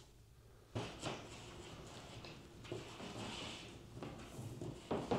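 Irregular tapping, scraping and knocking as a long, flexible fish rod is fed up through a hole in a drywall ceiling, with sharper knocks about a second in and near the end.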